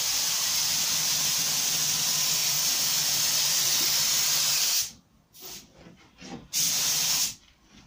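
DeVilbiss FLG5 gravity-feed compressed-air spray gun hissing steadily as it sprays a coat of primer. The trigger is released about five seconds in. After a short blip, there is one more spray of under a second near the end.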